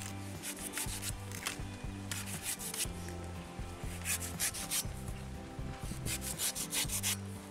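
Curved knife slicing and scraping the husk off a palmyra (toddy) palm fruit: quick rasping cuts in several short bursts. Low background music runs underneath.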